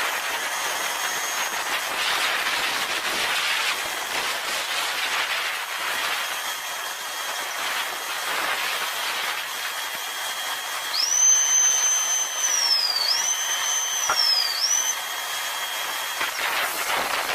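Steady airy hiss of aircraft turbine noise on an airport apron. Partway through, a high whine rises, holds and drops away twice.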